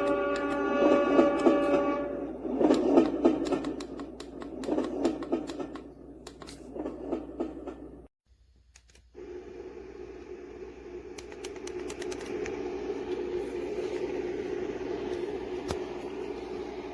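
Sleep sound machine playing its recorded ambient sounds through its small speaker: a pulsing, clicking sound, then a break to silence about eight seconds in, after which a steady even noise plays.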